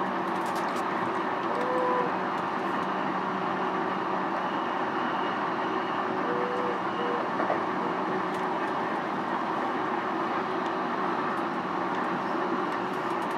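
JR East E233 series electric commuter train running between stations, heard from inside motor car MoHa E233-1438: a steady rumble of wheels on rail with a constant hum. Two brief faint tones come about 2 seconds in and about 7 seconds in.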